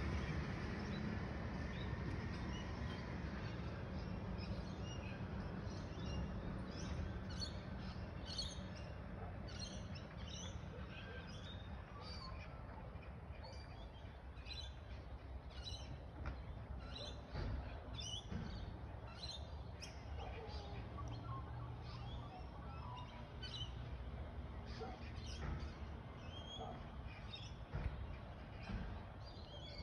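Birds chirping and calling over the low engine rumble of a garbage truck that slowly fades as the truck drives away.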